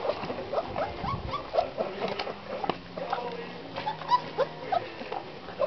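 Black Russian Terrier puppies, about four weeks old, squeaking and whimpering while they jostle to nurse: many short, high squeaks, several a second.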